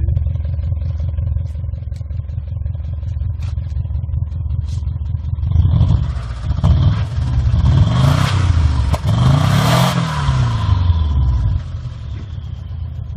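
Subaru EJ206 2.0-litre turbocharged flat-four engine idling, then revved up twice in the middle and settling back to idle near the end. It carries a knock that the owner is chasing, an engine he judges due for a rebuild.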